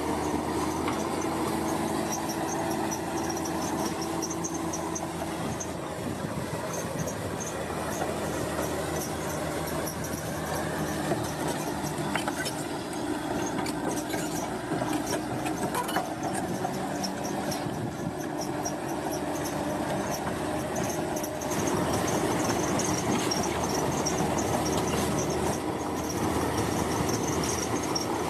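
Bulldozer's diesel engine running steadily under load, with squealing from its steel crawler tracks and a few sharp knocks. The machine gets louder about three-quarters of the way through.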